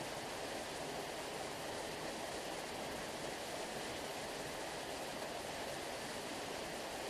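Sea surf as a steady, even rush of water, like a waterfall, with no separate wave breaks.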